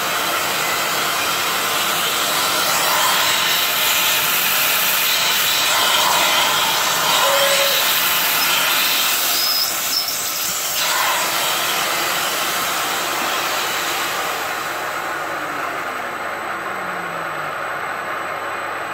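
CNC milling machine spindle running while a drill bores into an induction-hardened lathe bedway, a steady machining noise. A louder hiss runs from about 3 to 11 seconds in, with brief high squeals near its end.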